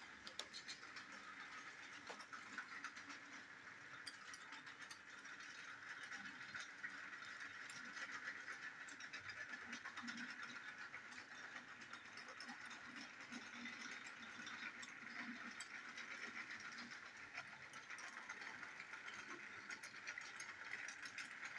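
Battery-powered Plarail toy locomotive running steadily around plastic track, its small motor and gearbox whirring, with a light clicking rattle from its wheels and the plastic wagons it pulls.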